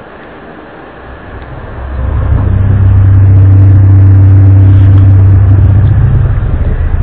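A loud, low, steady drone with a few higher overtones, of the kind circulated as the mysterious worldwide 'strange sounds' from the sky. It swells up about two seconds in, holds, and eases off slightly near the end.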